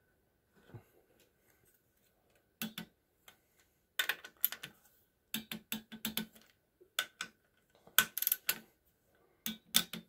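Torque wrench ratchet clicking in short runs of sharp clicks on the cylinder head bolts of a Briggs & Stratton overhead-valve engine, as the bolts are re-checked at final torque after a head gasket replacement.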